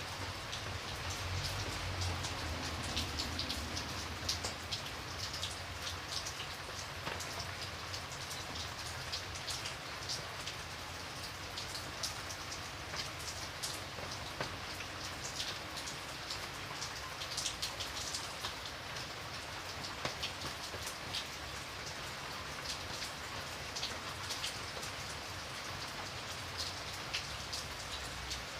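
Steady drizzle falling: an even hiss of rain with many small separate drop ticks.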